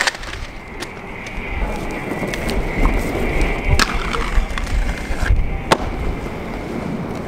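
Aggressive inline skates rolling over concrete, the wheels rumbling, with several sharp clacks, the loudest near the end. A steady high whine runs underneath.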